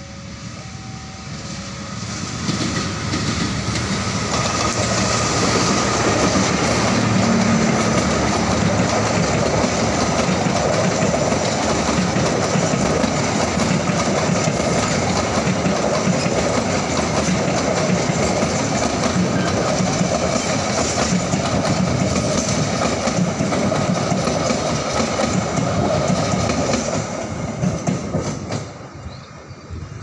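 Passenger train running past close by: a diesel locomotive followed by a long rake of coaches, wheels clacking over the rail joints. The noise builds over the first few seconds, holds steady and loud, and dies away a few seconds before the end.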